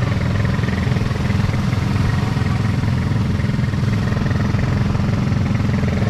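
A motor vehicle's engine running steadily, a low, even drone.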